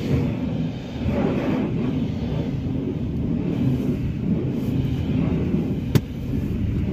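Pressure-washer water spray at a hand car wash, a steady low rumble heard muffled from inside a car's cabin, with one sharp click about six seconds in.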